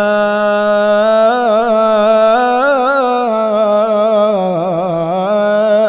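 A man's voice chanting Quranic recitation, drawing out the long vowel of "jazā'an" as one held melodic note. The pitch wavers through ornaments in the middle, settles, and stops near the end.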